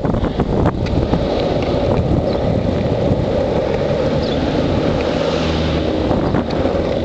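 Longboard wheels rolling fast down an asphalt road, a steady rumbling road noise, with wind buffeting the microphone.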